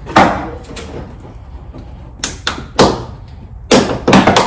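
Plastic fender flare and its push-clips being worked loose on a pickup truck: a string of irregular sharp knocks and snaps of plastic, about eight in all, loudest just after the start and again near the end.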